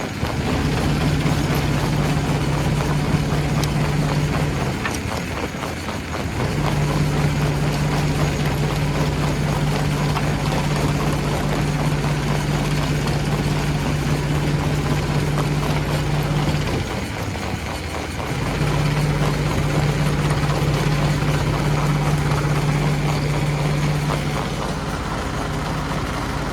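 Stone crusher machinery running: a steady low hum that drops out twice for a second or two, over constant rattling and clattering.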